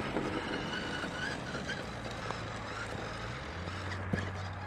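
Electric motor and drivetrain of a Redcat Ascent Fusion RC crawler running with a low, steady hum that steps down in pitch near the end, and one sharp click shortly before the end.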